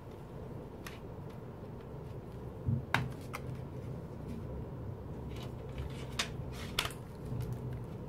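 Plastic CD jewel cases and paper photo cards being handled on a wooden table: scattered light clicks and taps, the loudest pair about three seconds in and a few more after about five seconds, over a steady low hum.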